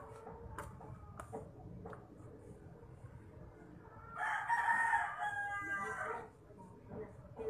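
A rooster crowing once, a single call of about two seconds starting about four seconds in and trailing off at the end.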